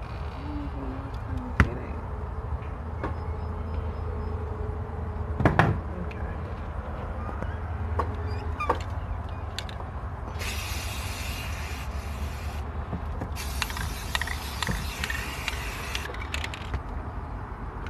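Aerosol spray paint can spraying in two bursts of about two seconds each in the second half, the hiss starting and cutting off sharply. Before that come a few clicks and knocks from handling the can and pot, over a steady low rumble.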